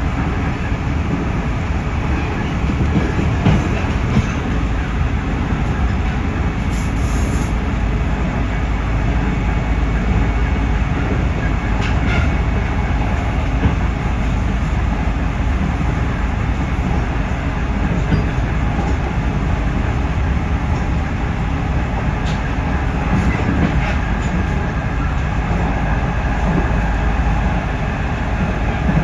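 Running sound of a JR Central 311 series electric multiple unit heard from inside the car: a steady rumble of wheels on rail with a few faint clicks.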